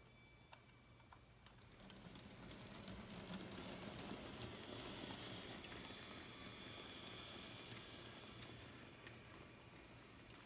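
A LEGO train backing over plastic L-gauge track and an R104 switch: a faint rolling rattle builds as it passes and then fades, with a faint steady whine from its motor and scattered light clicks of the wheels over rail joints and the switch.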